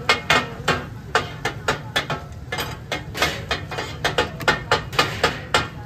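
Metal spatulas striking and scraping on a large iron tawa griddle as fish katakat is chopped and tossed: irregular sharp metallic clacks, a few a second and quicker near the end, over a steady low hum.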